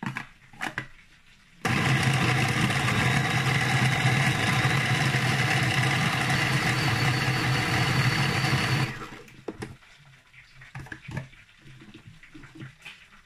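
Electric food processor motor running for about seven seconds with a steady hum, its blade chopping red peppers, tomatoes and onions into a coarse paste without added water. It starts suddenly and then stops, with a few small clicks of handling before and after.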